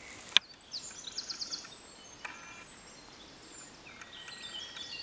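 Songbirds singing in woodland: a quick run of high, falling notes about a second in and more chirping phrases near the end, over a quiet background. A single sharp click comes just before the first birdsong.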